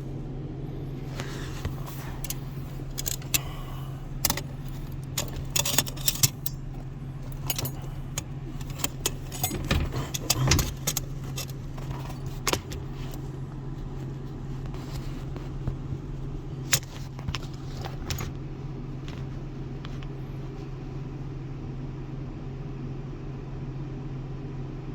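Scattered metallic clicks and clinks from handling the emergency brake cable and the dash-mounted parking brake mechanism, thickest in the first half, over a steady low hum.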